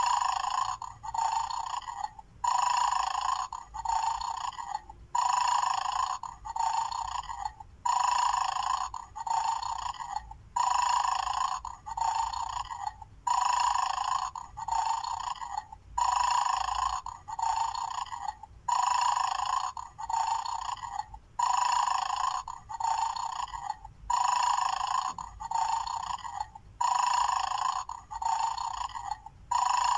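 Mad Dog bone-game toy's electronic snoring sound playing on a loop from its small speaker: pairs of short snores repeating about every two and a half seconds.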